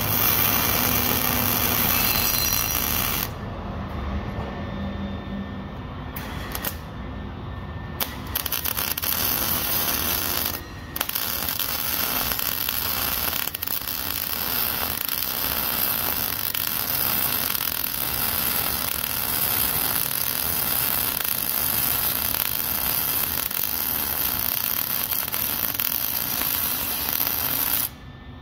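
Electric arc welding of an exhaust flex pipe into the exhaust pipe: a steady crackling hiss from the arc. It comes in short bursts during the first several seconds, then runs as one long continuous bead from about eleven seconds in, and stops abruptly near the end.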